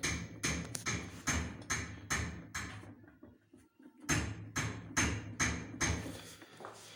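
Whirlpool washing machine drum pushed by hand, knocking against the back wall in a quick series of about three knocks a second, pausing for about a second midway. The knock comes from the drum striking the mounts of a transport bracket that was never removed, which the owner had first taken for sagging springs.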